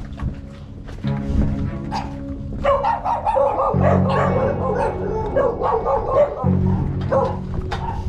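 Music with a steady, repeating bass beat, with a dog barking over it from about three seconds in.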